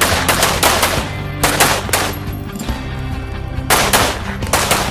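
Rifle shots fired in quick strings, several shots a fraction of a second apart: a group at the start, another about a second and a half in, and another near the end.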